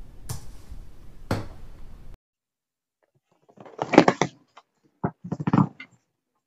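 A typing sound effect clicks for about two seconds, then stops. After a short silence, a hard-shell suitcase is handled: a burst of knocks and clatter about four seconds in, a single knock, and a second burst as the lid is opened.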